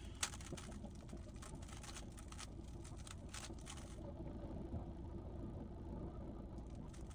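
GAN 15 speedcube being turned, a run of quick plastic clicks over a steady low hum. The clicks thin out about four seconds in.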